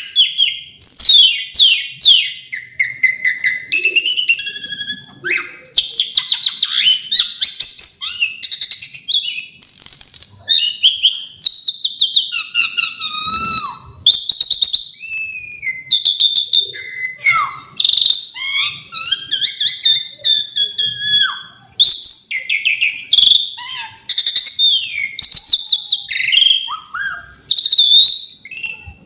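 Asian pied starling singing a long, varied song of whistles, rapid trills and harsher notes with short pauses between phrases, its song filled with mimicked phrases.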